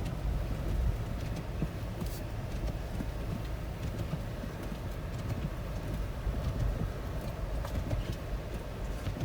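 2020 Toyota 4Runner TRD Off-Road driving slowly through deep snow: a steady low rumble of its V6 engine and tyres, with a few faint clicks.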